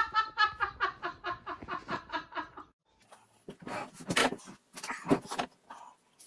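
Laughter, a run of quick pulses tailing off and stopping about three seconds in. Then a plate is set down on a hard table with a couple of clattering knocks and some handling noise.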